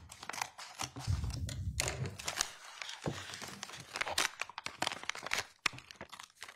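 A sealed evidence package being opened and handled: its wrapping crinkles, with many sharp clicks and a few low knocks.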